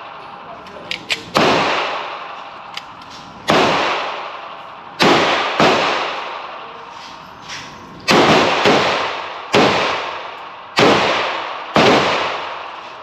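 Handgun shots at a shooting range: about nine sharp reports at irregular intervals, some in quick pairs about half a second apart, each ringing out in a long echo.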